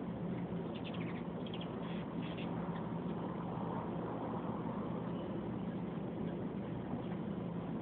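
Hummingbirds hovering and squabbling at a feeder: a steady whirring hum of many wings, with a quick run of short, high chirps in the first few seconds.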